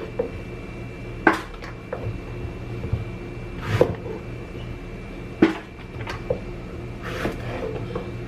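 Cleaver knocking on a cutting board as the stems are cut off eggplants, with the eggplants handled and set down between cuts: about eight sharp knocks spaced irregularly, the loudest about a second in and just past halfway. A steady hum runs underneath.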